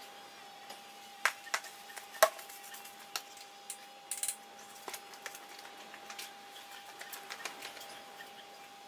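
Scattered light clicks and taps of parts being handled in the engine bay while the oil is checked. The two loudest come about one and two seconds in, with a short scrape about four seconds in, over a faint steady high hum.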